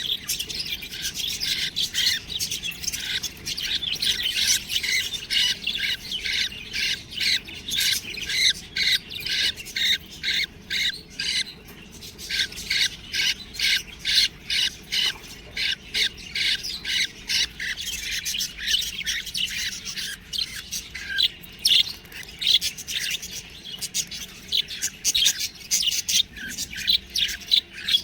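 Several budgerigars calling continuously, a dense stream of short chirps and chatter, several calls a second.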